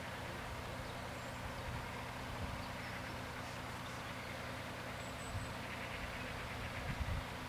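Steady outdoor background at a closed level crossing: a low even hum under a faint hiss, with a few brief high bird chirps.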